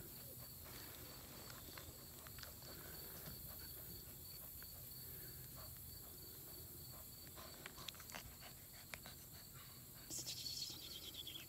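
Faint outdoor ambience: a steady, high insect drone, with soft small clicks and rustles of a puppy licking and mouthing a hand in the grass. About ten seconds in, a louder buzz falls in pitch for about a second.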